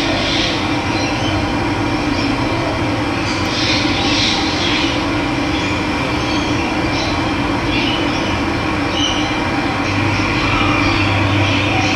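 Steady rush of running water, with occasional short bird chirps above it.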